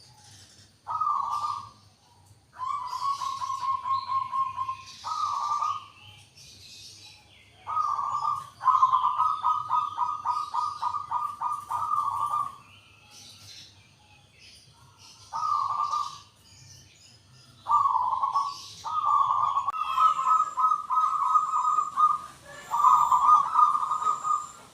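Zebra dove (perkutut) cooing: phrases of rapid, pulsed coos on one steady pitch, each opening with a short note and running into a quick rattling series. The phrases repeat with pauses of a second or two between them.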